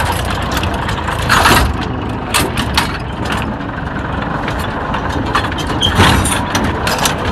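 Small tractor's engine running as the tractor lurches down a rough bank, with sharp clattering knocks from the jolting machine at about a second and a half in, twice around two and a half seconds, and again near six seconds.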